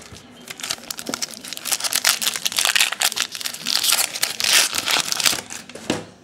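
Foil wrapper of a Topps baseball card pack crinkling and tearing as it is ripped open by hand. It is a dense run of crackles, loudest in the middle.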